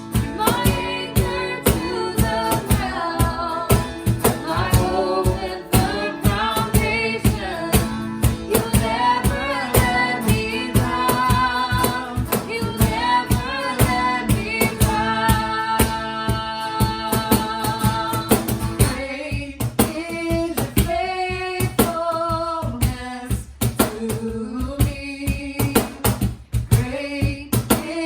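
Live worship band music with a woman singing lead over guitar and a steady beat; the accompaniment thins out about two-thirds of the way through.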